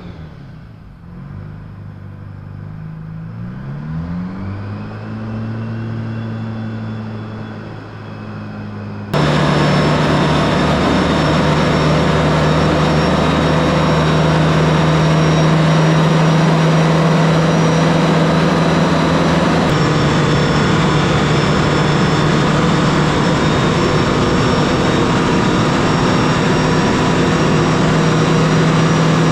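Detroit Diesel 4-53T two-stroke turbocharged diesel with a freshly rebuilt N blower, on a test stand. It revs up and down, muffled as heard from outside the shop, then from about nine seconds in it is loud and close, running steadily at high speed with no load. The owner judges it to be running smoothly on the new blower.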